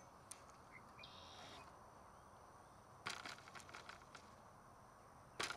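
Mostly quiet, with faint clicks from a baitcasting reel being handled: a quick run of clicks about three seconds in and a single click near the end.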